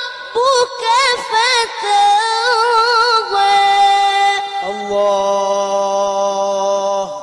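A boy's voice in melodic Quran recitation, drawn out on a vowel without distinct words: quick ornamental wavers in pitch for the first few seconds, then long held notes to just before the end. It is sung in a sorrowful, weeping style.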